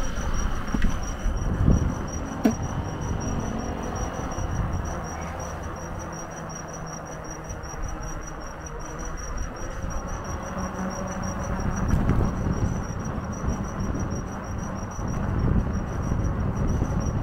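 Riding a HITWAY BK10S folding fat-tyre e-bike: wind and tyre rumble on the microphone, with a steady high-pitched pulsing whine throughout. There are a couple of sharp knocks about two seconds in.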